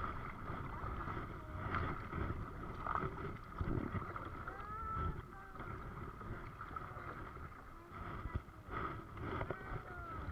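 Oars or paddles dipping and splashing in the water from a small rowed boat, with a low rumble of wind on the microphone and a few short knocks or splashes.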